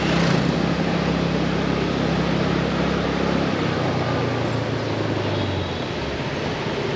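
Motorbike engine running while riding in city traffic, over a steady rush of wind and street noise; the engine hum drops in pitch about halfway through.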